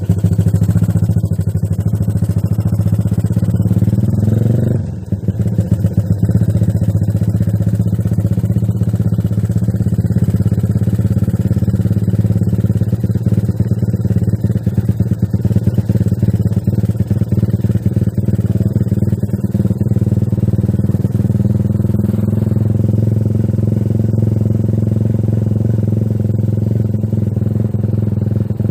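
Yamaha LC135 V1 moped's single-cylinder four-stroke engine, built to 'spec 62', running. The revs rise about three seconds in and drop off sharply near five seconds, then hold a steady note.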